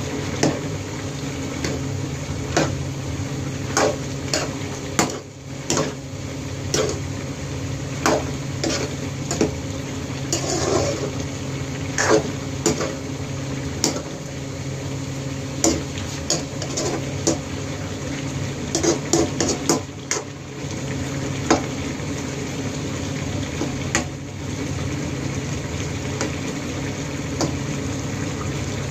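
A long metal spoon stirring squid adobo in a frying pan, clinking and scraping against the pan at irregular intervals over the steady simmer of the sauce.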